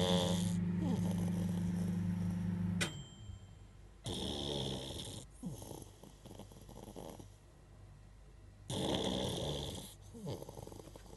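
Beagle snoring in its sleep, three snoring breaths about four to five seconds apart. A steady low hum runs under the first one and stops with a sharp click a little under three seconds in.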